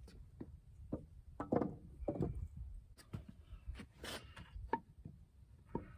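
Scattered knocks and scrapes of wooden lumber being handled, with a few louder knocks of the timber.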